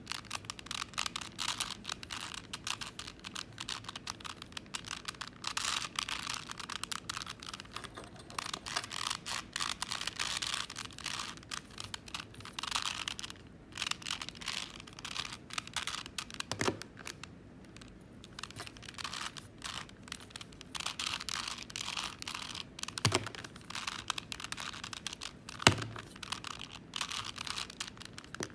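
Plastic 4x4 Rubik's cube being turned quickly, a dense, irregular run of clicking and clacking layer turns while the long edge-parity algorithm is carried out, with a few louder knocks about two-thirds of the way through and twice more near the end.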